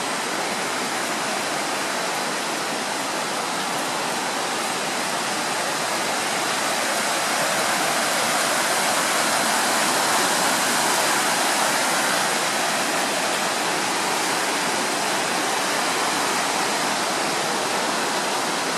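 River rapids rushing below in a steady wash of white-water noise, growing a little louder around the middle.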